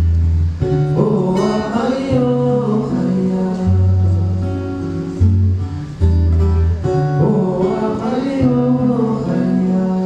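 Live band music: strummed acoustic guitar over a held bass line, with a wavering melody line coming in twice.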